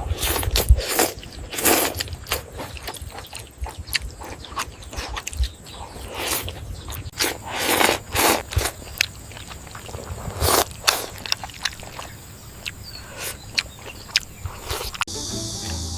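Close-miked eating sounds: chewing and biting into momo dumplings, with irregular wet smacks and clicks of the mouth. Background music comes in near the end.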